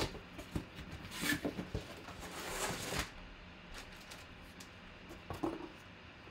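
A cardboard box being opened and a jersey in a clear plastic bag handled on the table: a sharp knock at the very start, two bursts of rustling and crinkling in the first half, then light taps and handling noises.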